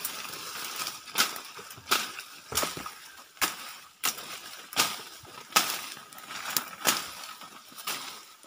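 Rustling and crackling of leaves, twigs and brush as people push through dense undergrowth on foot, with sharp snaps roughly every two-thirds of a second like steps breaking dry litter.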